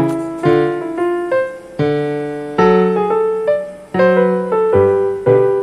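Background piano music: an unhurried melody of struck notes and chords, a new one about every half second, each fading away after it sounds.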